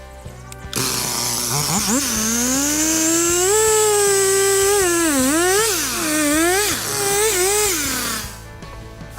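Electric power tool, such as a drill, starting up suddenly, its motor whine rising in pitch. It runs at varying speed with several dips as if loaded or feathered, then winds down and stops near the end, over background music.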